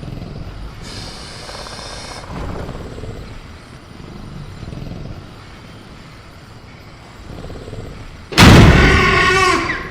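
Sound-effect velociraptor in a cage over a low, steady jungle-ambience rumble: a faint high call about a second in, then near the end a sudden, very loud crash against the cage with a screeching roar over it.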